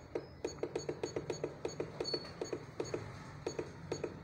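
Rapid run of short key clicks from the membrane keypad of a digital weighing indicator, about four or five presses a second with a brief pause near the end, each with a faint electronic beep: the full-capacity value being stepped while calibrating the scale.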